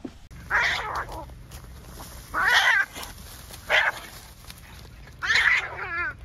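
Fighting cats yowling: four loud, drawn-out yowls, the last one wavering up and down in pitch.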